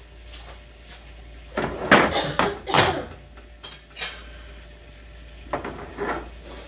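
Dishes and cookware clattering: a run of loud knocks and clinks about one and a half to three seconds in, then a few lighter clicks.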